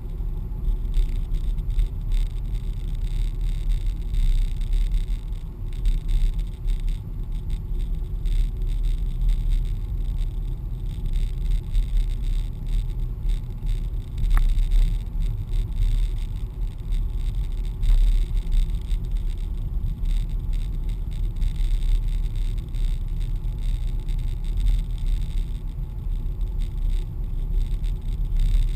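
A car driving along a country lane, heard from inside the cabin: a steady low rumble of engine and tyre noise, with one short tick about halfway through.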